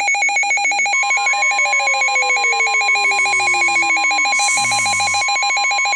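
Weather radio's built-in alert alarm sounding: a loud, rapidly pulsing electronic beep. About a second in, the steady 1050 Hz NOAA Weather Radio warning tone joins it, marking a new warning coming in. A lower tone slides slowly down beneath them, and two short bursts of static come through in the middle.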